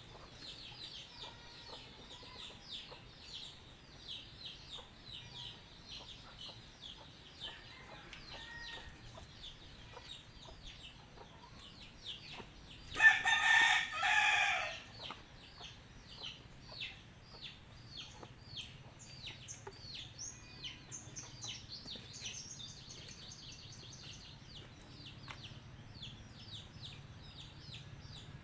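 Chickens: a rooster crows once, loudly, about halfway through, over a steady run of short, high chirps.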